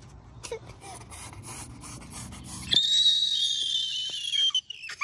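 A toddler's long, high-pitched squeal, falling slightly in pitch, starting suddenly about three seconds in and lasting nearly two seconds, with a short falling cry near the end. Before it, soft repeated rustles.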